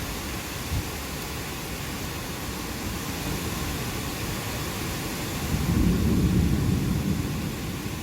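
Steady rain, with a low rumble of thunder that swells about two-thirds of the way through and fades again before the end.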